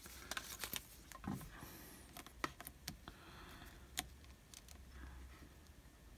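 Faint scattered clicks and taps of a resin watch strap and its metal buckle being handled and fastened around a wrist, the sharpest click about four seconds in.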